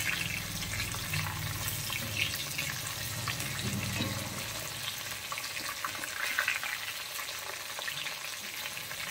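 Quail and curry leaves deep-frying in hot oil in an iron kadai: a steady sizzle with scattered small crackles, as a wire spider strainer is moved through the oil to scoop the pieces out.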